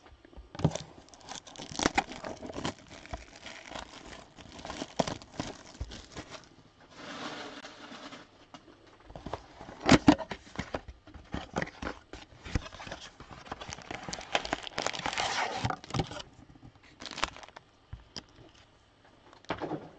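A 2021 Donruss blaster box and its card packs being opened by hand: plastic wrapper crinkling and tearing and cardboard rustling in irregular bursts with small clicks, and one sharp knock about ten seconds in.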